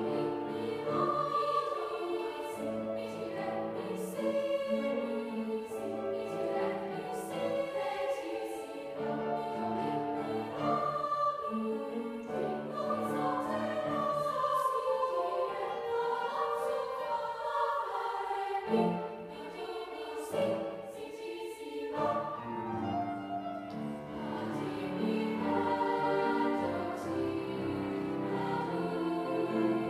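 Young treble choir singing in several parts with grand piano accompaniment.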